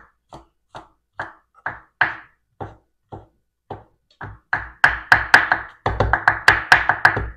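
Kitchen knife chopping garlic on a wooden cutting board: separate knocks about two a second, then faster, louder chopping of about four strokes a second from about four and a half seconds in.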